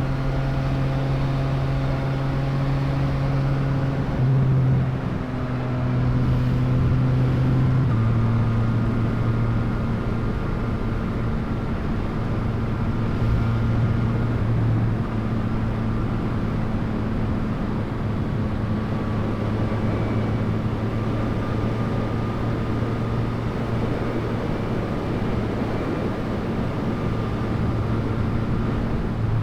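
Yamaha MT-09 three-cylinder engine running at a steady note while the bike cruises, with small shifts in pitch about four and eight seconds in, over a constant rushing noise.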